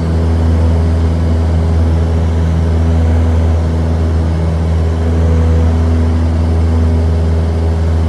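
Single-engine propeller airplane in flight, its engine and propeller making a loud, steady drone with a low hum, heard from inside the cabin.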